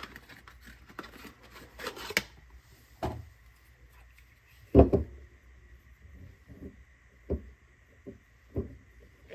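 Cardboard box rustling as it is opened and a plug-in AC adapter is taken out, then a dull thump about five seconds in as the adapter is set down on the wooden bench. This is followed by several light knocks and rattles as its cord is handled.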